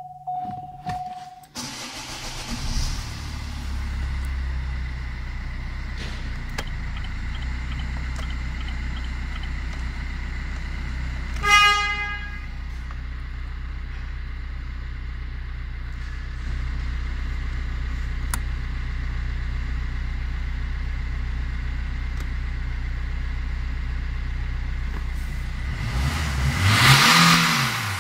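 Opel Astra J's 1.3 L A13DTE four-cylinder turbodiesel, heard from inside the cabin: after a short warning beep it starts and settles to a steady idle. There is a brief horn toot about a third of the way in. Near the end the engine is revved to about 4,500 rpm and drops back.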